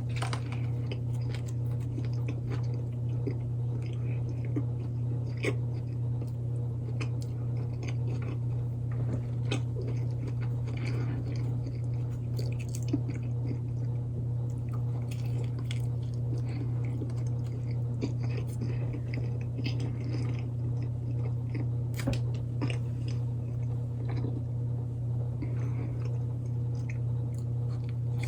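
Close-up chewing and biting into a crispy chicken sandwich, with small crunches and mouth clicks scattered throughout, over a steady low hum.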